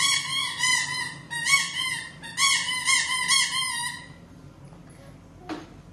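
Electronic horn on a child's toy cycle sounding a high, warbling electronic tone in quick repeated pulses, stopping about four seconds in. A short knock near the end.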